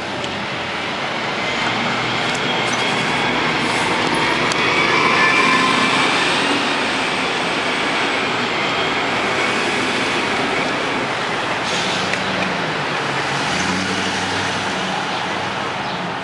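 Nova Bus RTS-06 city bus, with a Detroit Diesel Series 50 engine, pulling away from a stop and accelerating down the street. It is loudest about five seconds in, with a faint whine over the diesel, and is heard amid street traffic.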